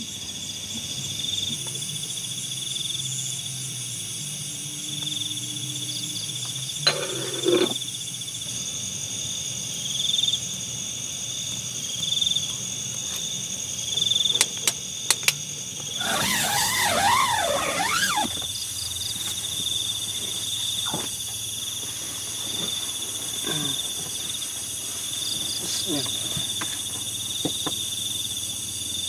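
Crickets and other insects trilling steadily in a high-pitched chorus with a faint pulsing. About sixteen seconds in, a louder sound with a wavering pitch lasts for about two seconds, and a few shorter sounds come and go before it.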